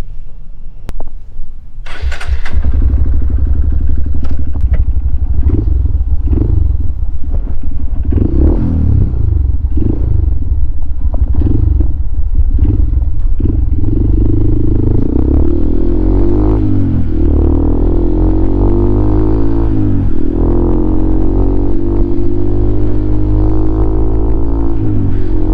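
Honda CRF150L's single-cylinder four-stroke engine through a Norifumi Noctus T5 aftermarket exhaust: it comes in loudly about two seconds in, is blipped repeatedly, about once a second, then pulls away with the pitch rising and dropping back at a few gear changes.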